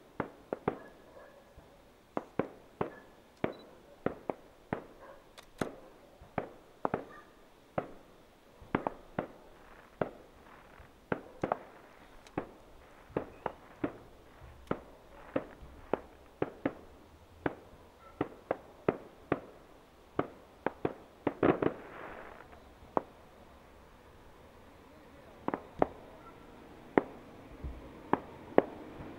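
Fireworks display: a rapid, irregular series of sharp bangs from bursting aerial shells, about two a second, thickening into a dense cluster a little past the middle, then a lull of a few seconds before more bangs near the end.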